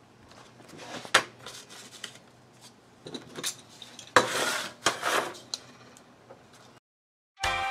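Hands handling a folded paper template and a utility knife on a workbench: a sharp tap about a second in, a short burst of paper rustling a little after the middle, and a few light knocks and clinks. The sound cuts out, and music starts just before the end.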